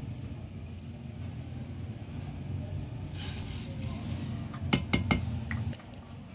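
Cumin seeds poured from a bowl into a dry non-stick frying pan: a short rustling hiss, then four or five sharp clinks of the bowl knocking on the pan. A low hum runs underneath and drops away near the end.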